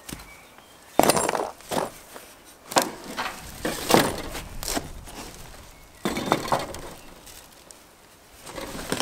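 Clay bricks being set down and stacked under a steel saw frame on cardboard: a series of hard clunks and gritty scrapes of brick on brick.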